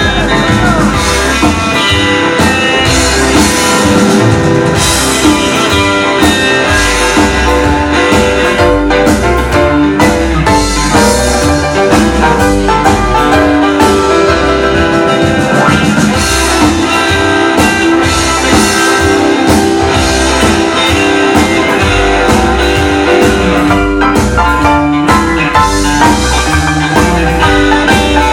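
Live rockabilly band playing an instrumental break: electric hollowbody guitar lead over upright bass and a drum kit, with no singing.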